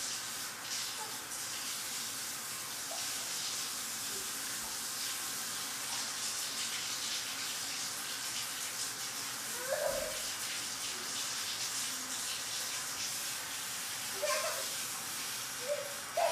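Bathtub faucet running a steady stream of water into the tub while a baby's hand plays in it. A few short baby vocal sounds come in about ten seconds in and again near the end.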